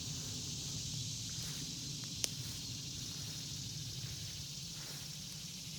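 Steady high-pitched insect drone in rural brush, over a low outdoor rumble, with one sharp click about two seconds in.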